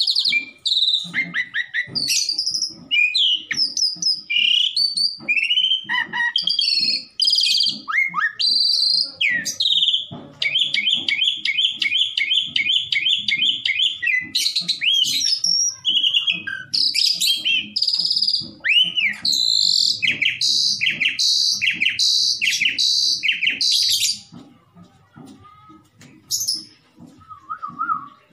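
Asian pied starling singing a long, varied song of whistles, squeaky glides and chattering notes. About ten seconds in it runs into a fast, even trill of repeated notes for some four seconds, later gives a row of short separate notes about two a second, and grows quieter and sparser over the last few seconds.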